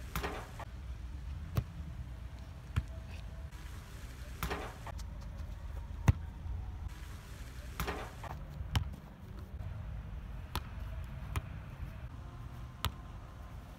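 A leather football being kicked and hitting the goal crossbar and fence: short, sharp thuds about ten times, a second or two apart, over a low steady rumble.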